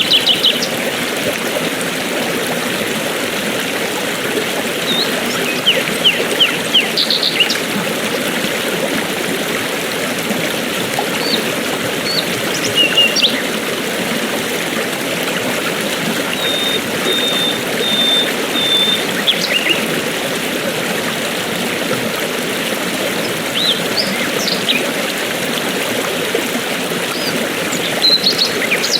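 Steady rush of a stream or waterfall, with small birds chirping now and then over it, including a short run of evenly spaced high notes near the middle.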